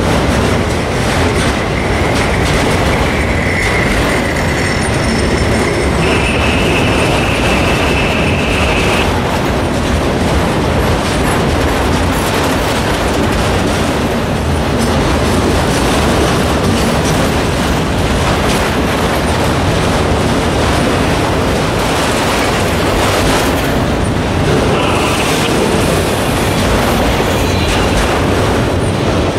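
Freight train of autorack cars rolling past at close range: a loud, steady rumble and clatter of wheels on rail. A high steady squeal runs from about one to nine seconds in, stepping up in pitch partway, and comes again briefly near the end.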